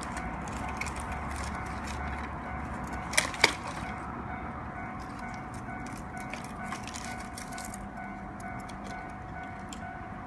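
Bamboo bonfire crackling with many small pops, and two loud sharp cracks about three seconds in.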